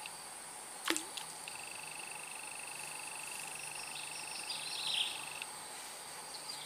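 Swamp insects trilling steadily at a high pitch, with a faster pulsed trill joining about a second and a half in and a few short chirping calls around four to five seconds; a single sharp click near the start.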